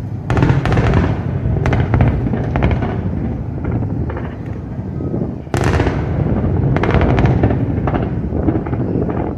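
Fireworks show in a dense barrage: rapid sharp bangs and crackle over a constant low rumble. A fresh volley breaks out about half a second in, and a louder one just past the middle.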